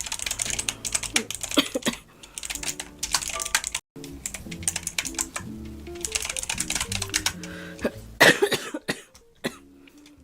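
Computer keyboard typing in quick runs of clicks over quiet background music, with one loud cough about eight seconds in.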